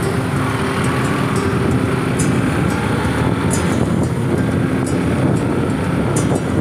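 Motorcycle in motion, heard from the bike itself: the engine running steadily under a thick layer of wind and road noise.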